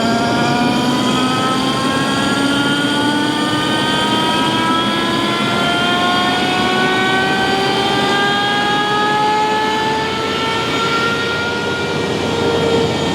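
Alup SCD 30 variable-speed rotary screw air compressor ramping up on its VFD: a motor whine made of several tones rising slowly and steadily in pitch over steady machine noise.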